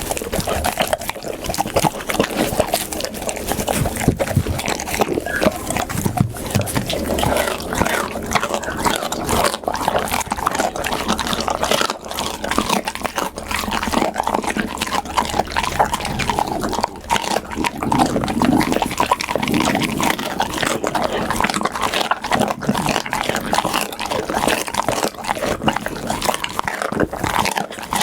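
Pit bull chewing and eating food close to the microphone: a dense, unbroken run of wet smacking bites and clicks.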